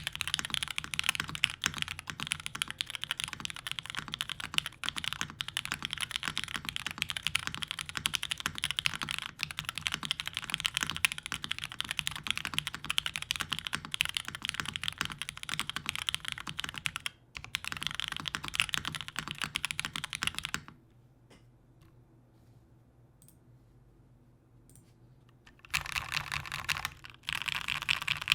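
Typing on an OTD 360c mechanical keyboard with vintage Cherry MX Black linear switches in a full aluminium plate and GMK Plum keycaps: a steady, fast run of key clacks. About two-thirds of the way through the typing stops for about five seconds, then resumes as dense bursts of rapid keypresses.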